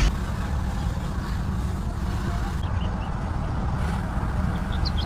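Steady low outdoor rumble picked up by a Ring doorbell camera's microphone, with a few faint bird chirps about halfway through and again near the end.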